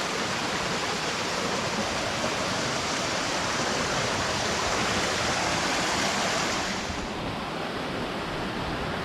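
Steady rush of cascading waterfall water, its hiss softening slightly about seven seconds in.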